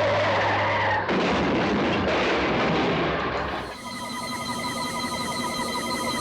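A run of science-fiction sound effects. A falling electronic tone lasts about a second, then gives way to a loud roaring rush of noise. A little before the four-second mark this cuts to a rapidly pulsing electronic warble.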